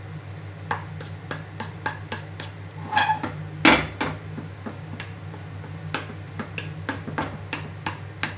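Wooden spatula stirring and tapping in a non-stick frying pan of cooked semolina upma: a run of light, irregular knocks and scrapes, with one louder knock a little under four seconds in. A steady low hum runs underneath.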